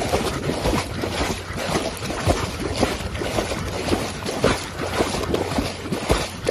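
Rough water splashing and churning around a swimming chocolate Labrador, with wind rumbling on the microphone.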